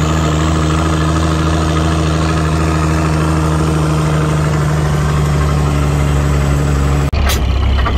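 Old military truck's engine running at a steady speed as the truck drives, a low, even drone; the sound breaks off abruptly about seven seconds in.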